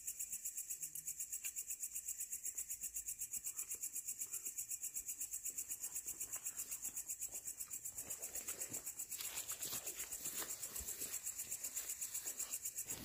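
Insects chirping in a high, steady pulse, about seven pulses a second, with faint footsteps and rustling from people walking along a dirt trail, mostly in the second half.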